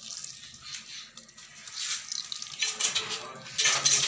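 Hands squeezing and rubbing handfuls of wet chopped cabbage in a steel bowl: irregular crunching and squishing, louder in the second half.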